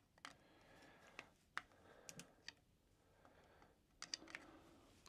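Faint, scattered clicks and light scrapes of a small screwdriver tip catching and turning in the terminal screw of an old light switch, held in the hand.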